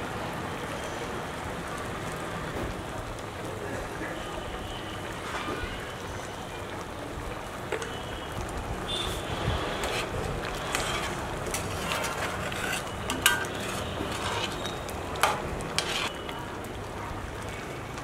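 Chicken curry bubbling at a boil in a metal kadai, with a steady hiss. From about eight seconds in, a metal spoon stirs it, clinking and tapping against the pan several times.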